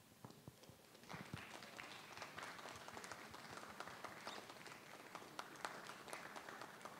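Faint audience applause: a few scattered claps, then steady clapping from about a second in.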